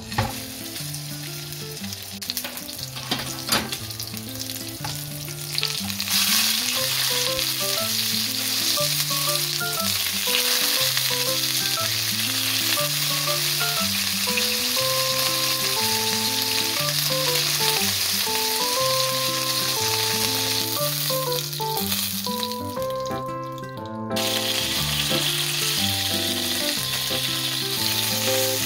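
Skin-on pork belly slab searing in oil in a nonstick frying pan, sizzling steadily as it browns for a Maillard crust. The sizzle grows louder about six seconds in and breaks off briefly near the end before coming back. Quiet background music with a repeating bass line plays underneath.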